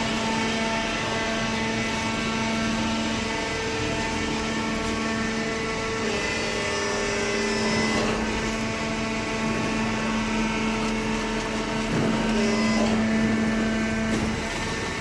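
Hydraulic baler's power unit running with a steady pitched hum, its tone shifting a few times.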